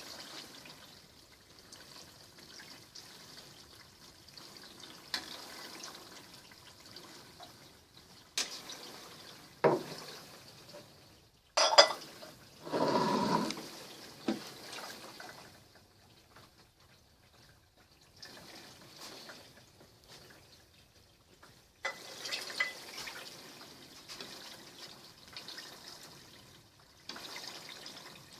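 Hot melted pork leaf lard being strained into a glass jar: a faint trickle and drips. A few sharp clinks and knocks come about eight to twelve seconds in, followed by a louder clatter.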